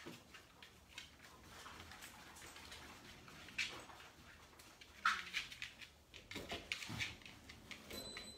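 Puppies scuffling about indoors: faint, irregular clicks and knocks, with a sharper knock about five seconds in.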